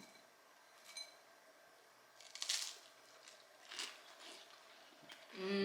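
Faint eating sounds at a breakfast table: a few soft clicks and clinks of cutlery and dishes and a short scraping crunch about two and a half seconds in. A voice starts near the end.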